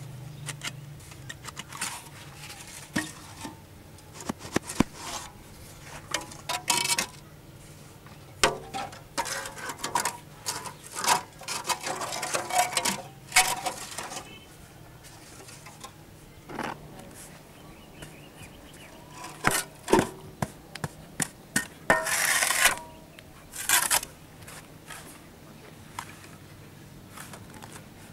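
Steel mould for hollow concrete blocks clanking and scraping as it is handled over fresh blocks: an irregular run of sharp metallic knocks and scrapes, with a couple of longer scrapes toward the end.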